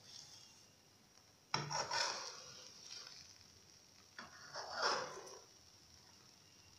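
Metal spoon scraping across a metal frying pan, stirring and pushing scrambled eggs as they set. Two strokes, each about a second long: one about a second and a half in, another about four seconds in.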